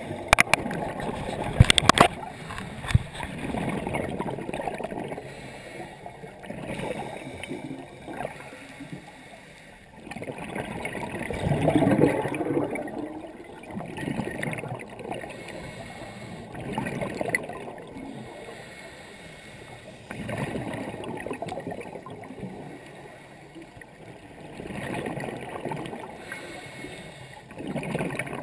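Scuba diver's exhaled bubbles from a regulator, muffled through a GoPro dive housing underwater, coming in swells every few seconds. A few sharp knocks sound in the first couple of seconds.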